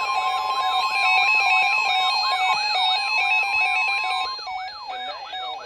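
Weather alert radio alarms sounding together for a severe thunderstorm warning: a siren-like tone sweeps up and down about three times a second over a steady alert tone. The steady tone cuts off a little over four seconds in, and the sweeping alarm carries on.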